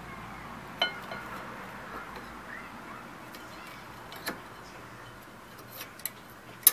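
Sharp metallic clicks and clinks as the worn rear brake pads of a 2000 Infiniti I30 are worked out of the caliper bracket. A few spaced clicks come through, the loudest near the end, with faint bird chirps behind.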